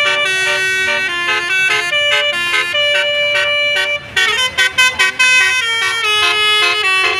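Indonesian bus telolet horn playing a tune: an electric multi-trumpet horn sounding several notes at once, stepping up and down in pitch. About four seconds in it breaks into a run of short staccato blasts before going back to held notes.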